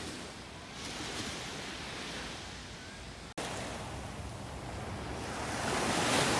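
Sea waves washing ashore with wind on the microphone, swelling to their loudest near the end as a wave breaks. The sound drops out for an instant a little over three seconds in.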